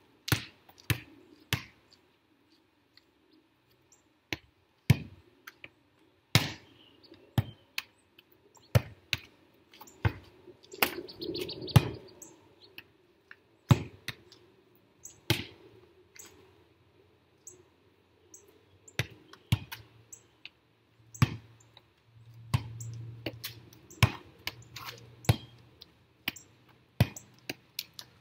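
Volleyball being struck with the hands and forearms and bouncing on concrete: a series of sharp smacks at uneven intervals, roughly one every second or so.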